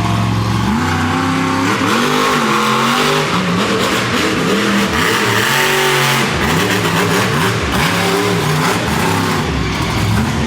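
Monster truck engine revving hard through a freestyle run, its pitch climbing and dropping again and again as the throttle is worked.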